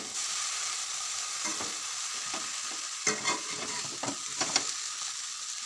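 Egg chow mein noodles sizzling in a hot metal kadai as they are stir-fried and tossed with a spatula. Several short strokes of the spatula scraping through the noodles and against the pan stand out over the steady sizzle.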